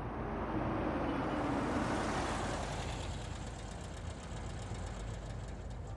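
A car driving up, its engine and tyre noise growing louder over the first two seconds, then settling into a steadier, quieter run as it draws in.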